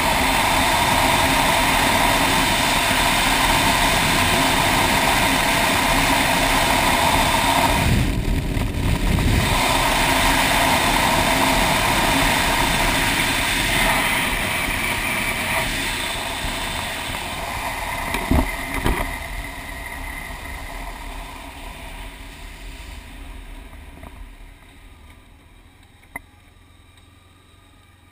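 Motorcycle riding at speed: engine and wind rush. Both fade away over the last ten seconds as the bike slows down. Two sharp knocks come about two-thirds of the way through.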